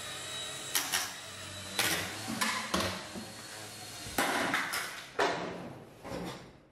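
Small electric RC helicopter's motor and rotor whine, fading out in the first couple of seconds, followed by a series of sharp knocks and clattering impacts.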